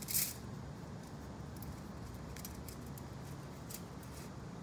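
Chain-link fence wire clinking and scraping as its links are twisted by hand. The loudest scrape comes right at the start, followed by a few faint, scattered clicks.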